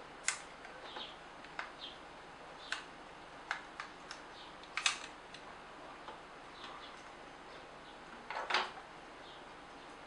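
Plastic housing of a Nikon SB900 flash head clicking and creaking as its back cover is bent up and slid off by hand: scattered sharp clicks, the loudest about five seconds in, and a longer scrape about eight and a half seconds in.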